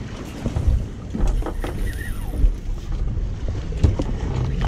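Low rumble of a boat at sea with wind buffeting the microphone, and a few short knocks.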